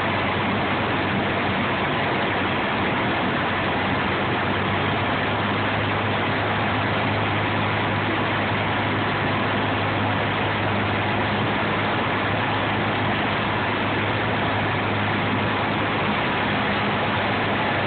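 Cessna light aircraft's piston engine and propeller running steadily on final approach, heard inside the cabin as an even low hum over a constant hiss of air.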